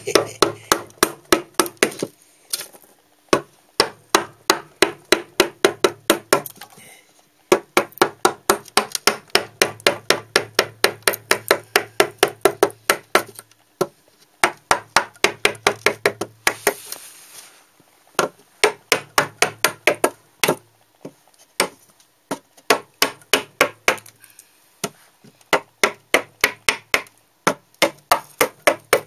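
Hammer blows driving a steel carving chisel into a block of wood, struck in quick runs of about four blows a second with short pauses between runs, each blow splitting off wood chips.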